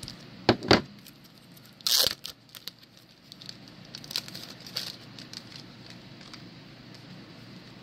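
Hands tearing and crinkling packaging: two sharp clicks about half a second in, one loud rip about two seconds in, then lighter crinkles around four to five seconds.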